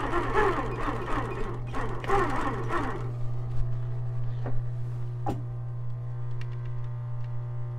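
A steady low hum throughout, with a jumble of unclear sound in the first few seconds; from about three seconds in, soft background music with held tones fades in.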